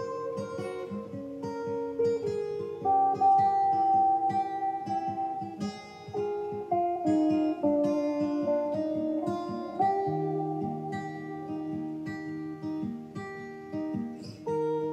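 Background music: a guitar playing a picked melody over quickly plucked notes.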